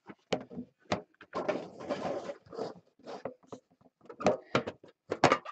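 Cardboard trading-card boxes being handled by hand: a run of short knocks, taps and scrapes as a box is picked up, turned and gripped.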